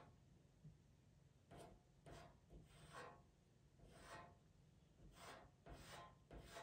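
Pastel pencil scratching on PastelMat paper in about eight short, quick strokes, roughly one a second and irregularly spaced, as fine hairs are sketched in.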